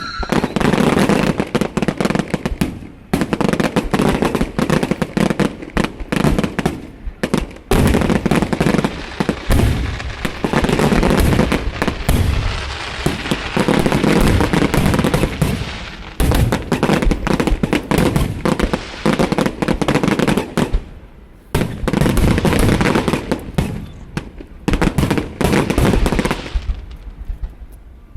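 Fireworks going off in rapid strings of bangs, many a second, with a few brief lulls between volleys.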